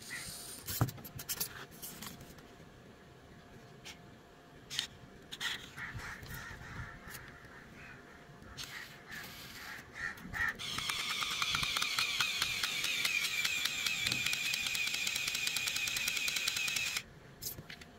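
Small electric motor driving a toy car's plastic gearbox, running for about six seconds from a little past the middle as a steady whir with a fast, even gear rattle, then cutting off suddenly. Before it, scattered light clicks and taps of wires and plastic parts being handled.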